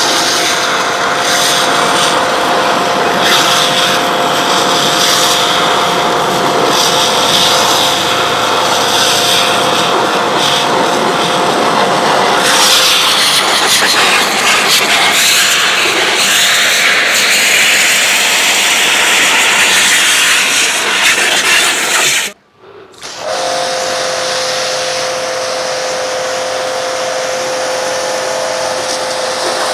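Shakti S3 high-pressure washer running: the pump motor whines steadily under the loud hiss of the water jet blasting a cardboard box and then a car. About two-thirds of the way through the sound stops for about a second, then resumes.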